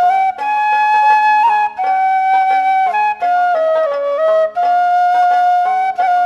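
Background music: a flute playing a melody of long held notes, with a lower accompaniment of short repeated notes beneath.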